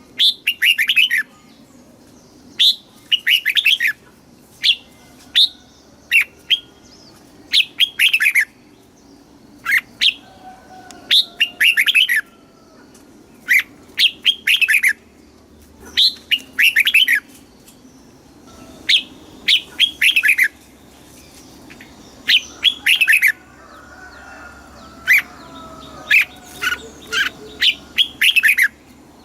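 Red-whiskered bulbul singing: short phrases of quick, sweeping notes, repeated every second or two.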